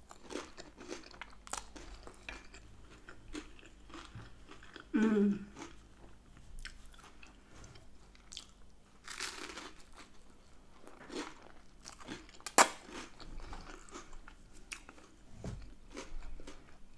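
A person chewing and biting food close to the microphone, with crunchy mouth sounds and many small clicks, typical of mukbang eating. A short hum comes about five seconds in, and a single sharp click, the loudest sound, about twelve and a half seconds in.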